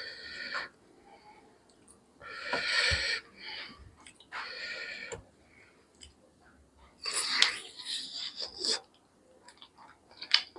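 A man's heavy, noisy breaths in four short puffs, the last with wet mouth clicks and chewing as he bites into a chicken leg piece.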